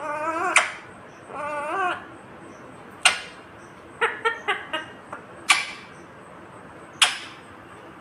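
Indian ringneck parakeet making two warbling, wavering vocal phrases in its talking voice in the first two seconds. After that come sharp, loud crackling snaps of a plastic snack packet as the bird bites and tugs at it: single snaps about three, five and a half and seven seconds in, and a quick cluster around four seconds.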